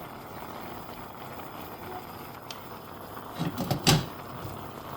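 Steady hiss of a pot cooking on the hob, with a short clatter of knocks about three and a half seconds in, the loudest a sharp knock near four seconds.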